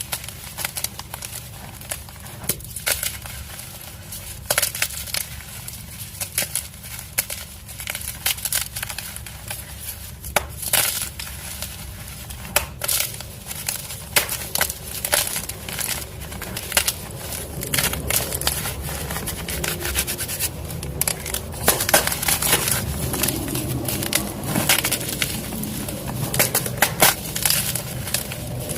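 Dyed gym chalk blocks being crushed, giving dry crunches and sharp crackles; from about halfway through the crumbling grows denser and steadier.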